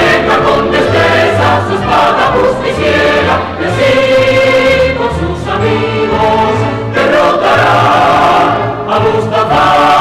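A choir singing a television theme song with orchestra accompaniment.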